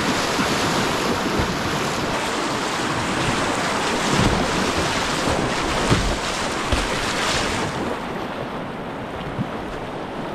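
Rushing whitewater of a river rapid, heard up close from a kayak running it, with wind buffeting the microphone. A few dull low thumps come near the middle, and the hiss eases a little near the end.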